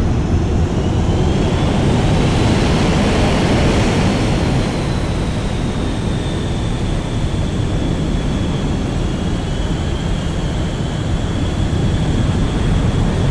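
Jet airliner in flight: a steady engine rumble with a high whine that rises over the first few seconds and then slowly falls.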